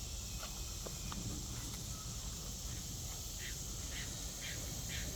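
Faint steady high-pitched insect drone, like crickets or katydids, with a few light clicks near the end.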